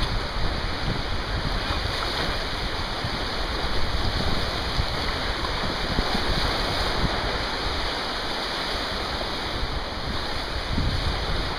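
Wind buffeting the microphone: a steady rushing noise with an uneven low rumble that comes and goes in gusts.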